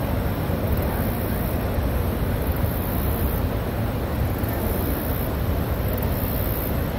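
Steady rushing roar of Niagara's Horseshoe Falls and the rapids above its crest, heavy in the low rumble.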